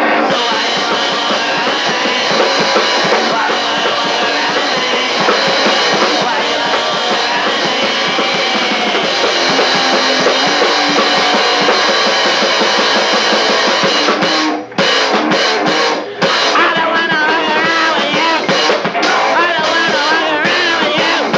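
Rock band demo recording: a drum kit and guitar play a fast rock song, and the band drops out for two short breaks about two-thirds of the way through.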